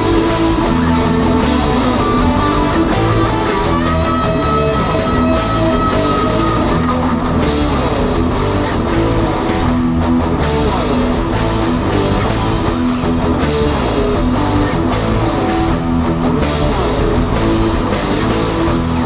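Background rock music with loud electric guitars.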